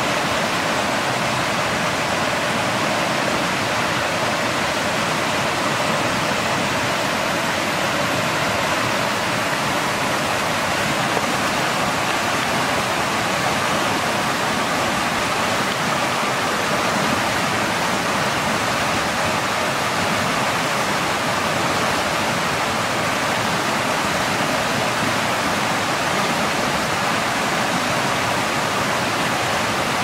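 Running water of a forest stream, a steady rushing hiss that does not change.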